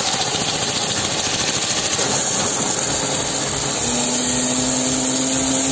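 Mechano 2200 W, 160 bar pressure washer running, its jet of water hissing steadily against a motorcycle's rear wheel and hub. A steady low hum joins about four seconds in.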